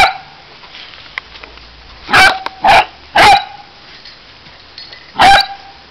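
Basset hound puppy play-barking: three short, sharp barks in quick succession about two seconds in, and one more near the end.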